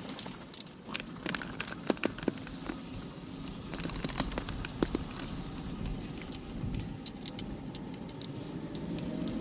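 Road and engine rumble inside a moving car, with a run of sharp clicks and rattles between about one and five seconds in.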